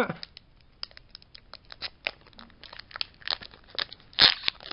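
Foil wrapper of a Pokémon trading card booster pack crinkling and crackling in quick, irregular bursts as fingers pick and pull at its torn top, the pack resisting being opened. The loudest crackle comes near the end.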